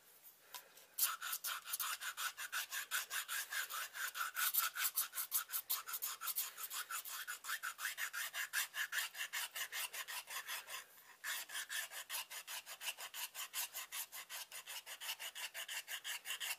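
Checkering file scraped rapidly back and forth across a knife handle part, about five strokes a second, with a short pause partway through. The strokes roughen the surface so the epoxy will grip it.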